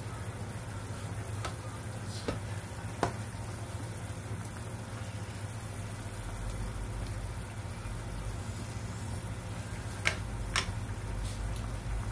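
Broccoli simmering in water in a nonstick frying pan over a steady low hum, with a few sharp clicks of a plastic slotted spatula against the pan as the florets are stirred, near the start and again about ten seconds in.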